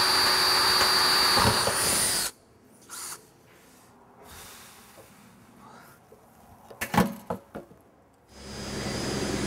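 Cordless drill boring a 3/16 pilot hole through the bracket into the stainless steel air cleaner shell: the motor whines and the bit grinds through metal, then it cuts off sharply about two seconds in. A few sharp clicks follow about seven seconds in, and a steady hum with hiss starts near the end.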